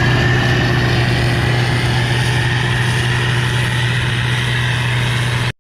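Case IH combine running steadily: a constant low engine drone with a steady high whine above it, cut off abruptly near the end.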